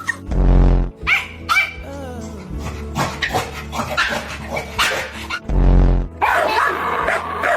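A dog barking and yipping in short bursts over background music, with two heavy low thuds, one near the start and one about three-quarters of the way through.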